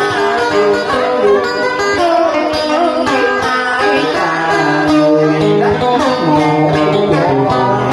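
Cải lương (Vietnamese traditional music theatre) accompaniment on plucked strings, with notes that slide and bend in pitch.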